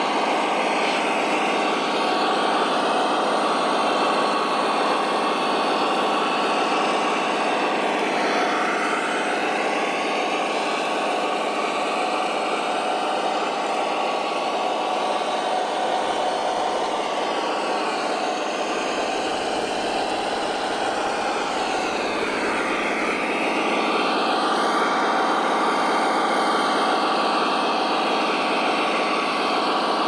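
Radio-controlled model Caterpillar bulldozer and six-wheel truck working through mud: a steady engine-like drone, with a motor whine that falls and rises again a few times as they pull.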